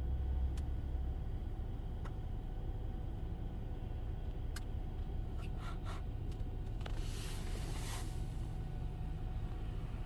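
Steady low rumble of a running motor vehicle, with a few sharp clicks and a hiss of about a second near the seven-second mark.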